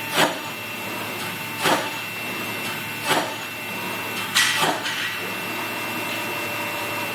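CNC machine running its program after a tool change: a steady mechanical hum with a faint high whine, and four short surges about every second and a half, the last one doubled.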